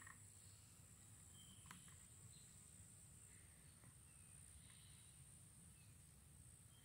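Near silence: faint outdoor ambience with a steady high-pitched insect buzz, a few faint bird chirps, and a faint click nearly two seconds in.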